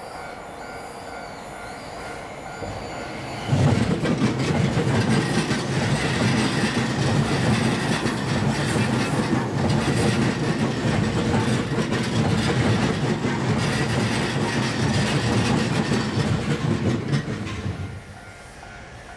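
Level-crossing warning bell ringing, then about three and a half seconds in an E657 series limited express electric train passes close by for about fourteen seconds. Its wheels clatter over the rail joints and the wheel flanges squeal against the rail on the tight curve. The train noise cuts off near the end, leaving the crossing bell.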